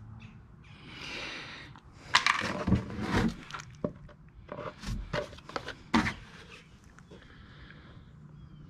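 A run of knocks, clatters and scrapes of tools and parts being handled on a workshop floor, busiest in the middle, with a soft rushing noise about a second in.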